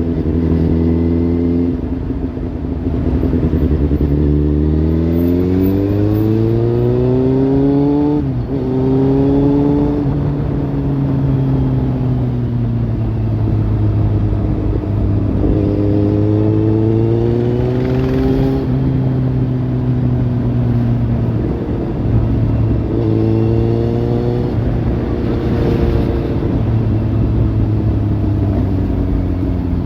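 Kawasaki Z800's inline-four engine through a Lextek slip-on exhaust, its note steady at first, then climbing and falling several times with the throttle. Its pitch drops suddenly about eight seconds in.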